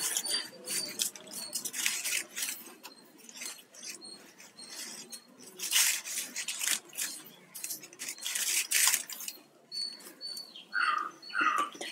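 Plastic weaving wire being handled: strands rustling and clicking against each other in irregular bursts as they are pulled through a tight knotted weave, with brief high squeaks of wire rubbing on wire.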